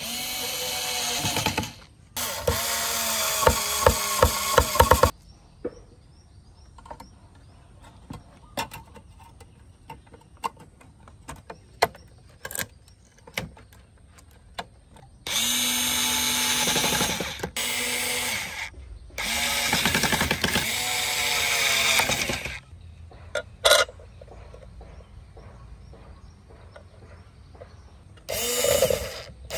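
Small cordless electric screwdriver turning small screws in a sheet-metal car amplifier case, in about five separate runs of one to three seconds, its motor pitch rising and falling with each. Faint clicks of handling come between the runs.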